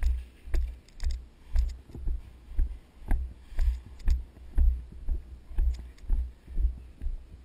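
Running footsteps on grass: a steady beat of heavy thuds, about two a second, as each footfall jolts the worn camera, with light clicks and rattles of gear between the steps.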